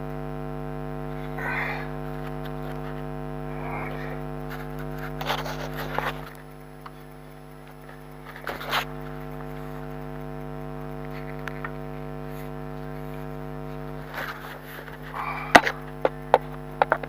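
Steady electrical hum, dropping in level about six seconds in, under scattered clanks and scrapes of metal tools working on a car's front suspension stabilizer link. A quick run of sharp metal knocks comes near the end.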